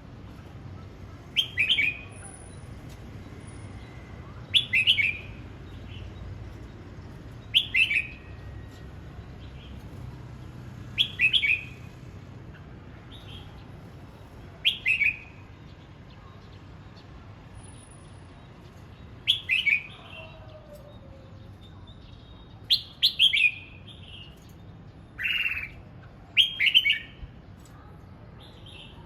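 Red-whiskered bulbul singing short, loud, whistled phrases, one every three seconds or so, more closely spaced near the end.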